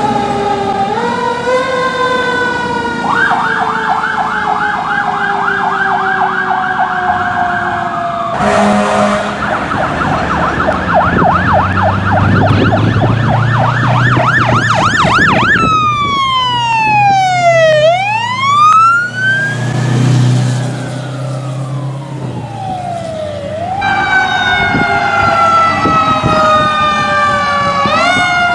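Fire truck sirens on several responding trucks in turn: a wail sliding down in pitch as a truck goes by, a fast yelp for most of the first half, then a slow wail sweeping down and back up, and near the end a wail with a short yelp.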